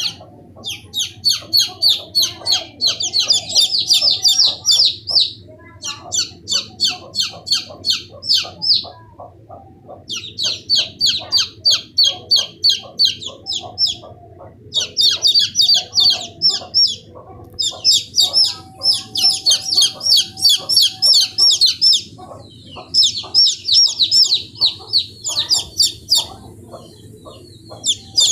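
Chicks peeping: runs of rapid, high, shrill peeps lasting a few seconds each, broken by short pauses, with fainter lower calls underneath.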